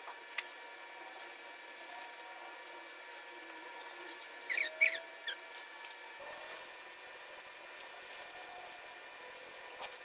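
Quiet room with faint scattered clicks; about halfway through, a quick run of high, squeaky chirps lasting under a second.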